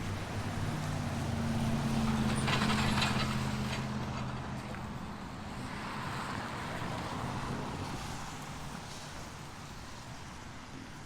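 A heavy diesel engine running, growing to its loudest about two to three seconds in with a brief hiss of air, then fading to a steady low rumble.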